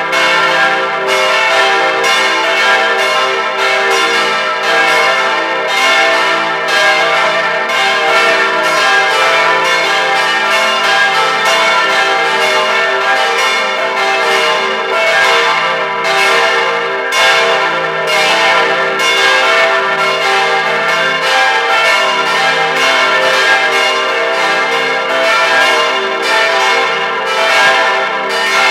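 Four church bells cast by Rincker in 1953, tuned e' g' a' c", swinging on straight yokes and ringing together in full peal, heard close up inside the bell chamber. Clapper strikes follow one another without a break over a dense, continuous ringing hum.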